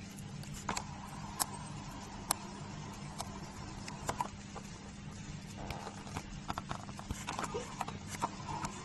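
Irregular small clicks of a young jerboa licking and sucking milk from the tip of a syringe, coming more often in the second half, over a steady low hum.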